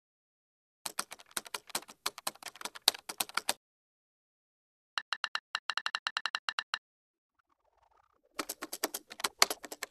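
Keyboard typing in three bursts of key clicks. An irregular run starts about a second in, a fast, even run of identical clicks comes midway, and another irregular run comes near the end.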